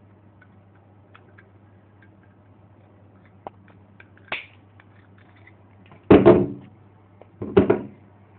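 A hand crimping tool's cutter blade closing on the eight untwisted wires of a Category 6 network cable to trim them: two loud clunks about a second and a half apart, after a few small clicks of handling.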